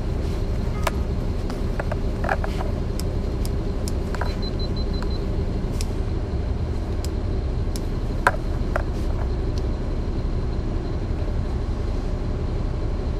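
Caterpillar C13 inline-six diesel of a 2009 NABI 40-foot transit bus running steadily, heard from inside at the rear near the engine. Scattered interior rattles and clicks sit over the drone, with one sharp knock about eight seconds in.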